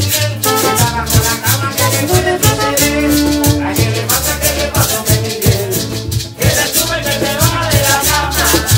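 Live cumbia band playing: a steady, quick rattle of maracas and a metal shaker over a pulsing upright bass line, acoustic guitar strumming and brass.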